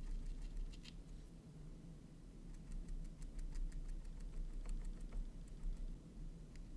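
Small paintbrush dabbing paint onto a tiny canvas: soft, irregular taps and scratches of the bristles on the canvas weave, busier from about two and a half seconds in. A low steady hum runs underneath.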